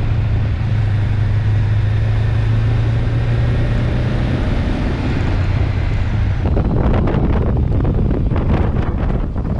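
Motorcycle engine running while riding, with a steady low hum under rushing wind. About six and a half seconds in, gusty wind starts buffeting the microphone over the engine sound.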